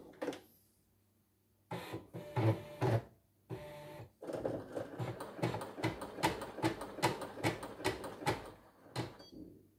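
Singer Quantum Stylist computerized embroidery machine running on a test after repair: a couple of short bursts of mechanism noise, then a run of regular stitching strokes, about two to three a second, that stop near the end.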